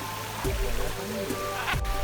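Background music with held notes and a bass line, with a faint watery rustle under it.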